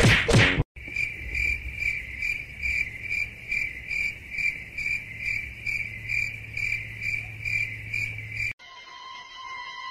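Cricket chirping, a steady chirp repeating about twice a second. It cuts off abruptly near the end and a different steady tone takes over.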